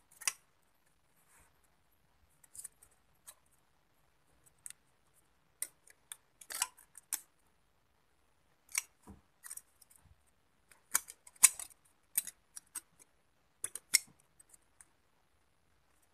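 Scissors making short, sharp snips at irregular intervals, cutting thin foil-lined drink packaging.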